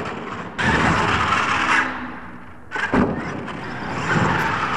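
Radio-controlled monster truck driven hard on dirt, its motor and tyres running in two bursts of throttle, with one hard thud about three seconds in as the truck lands or crashes.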